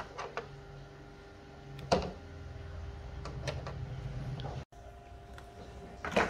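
Light clicks and knocks of hard plastic from a toy play-dough train extruder and its sliding shape plate being handled, the loudest about two seconds in, over a low hum. The sound cuts out for a moment shortly before the end.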